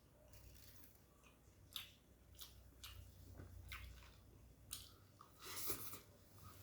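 Close-up eating sounds of a person chewing a mouthful of nasi padang, with scattered short wet mouth clicks and a longer, louder noise a little under six seconds in.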